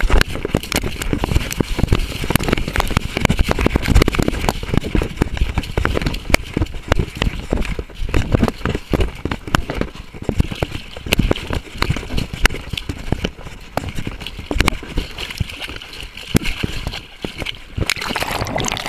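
Collar-mounted camera on a running coonhound: a constant jumble of irregular knocks, thumps and rubbing as the camera jolts against the dog and the brush while it works a track through the woods.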